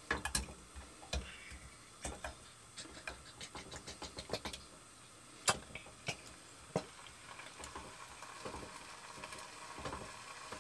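A metal spoon scraping and knocking against a tin can as lamb stew is spooned out into a saucepan, giving a string of sharp clicks and taps with one louder clack about halfway. Toward the end a faint steady sizzle comes up as the stew starts to heat in the pan.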